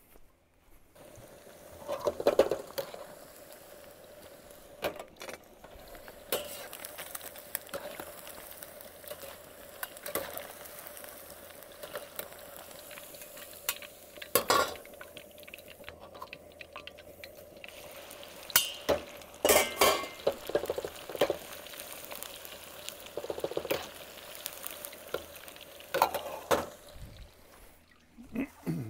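Chicken chunks in an egg-white and cornstarch coating frying in hot oil in a wok, a steady sizzle, with repeated clinks, knocks and scrapes of a utensil against the wok as the pieces are stirred.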